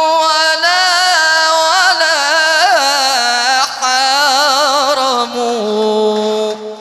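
A solo male religious chanter (mubtahil) sings a long melisma on one drawn-out syllable, the voice wavering through quick ornaments. About five and a half seconds in it drops to a lower held note, which fades away near the end.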